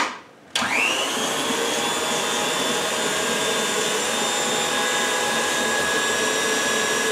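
Electric stand mixer switched on with its paddle creaming butter and sugar: the motor starts about half a second in with a short rising whine, then runs steadily.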